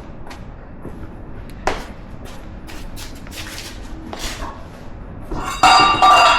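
Scattered light clicks and knocks of tools and parts being handled, then, about five and a half seconds in, a loud, high, ringing metallic squeal lasting under a second, like metal scraping on metal.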